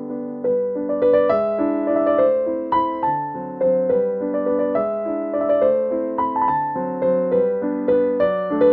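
Background music: a gentle piano tune, notes struck in a steady, even rhythm.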